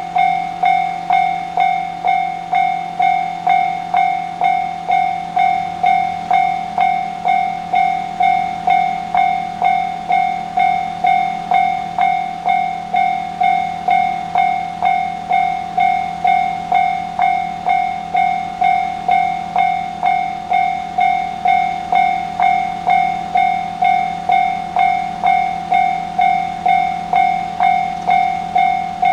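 Japanese railway level-crossing alarm ringing: a bright electronic bell tone struck over and over at an even pace, about one and a half strikes a second.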